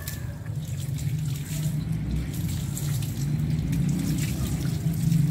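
Water running steadily from a garden hose and splashing over a dog's wet coat and the concrete beneath as the dog is rinsed.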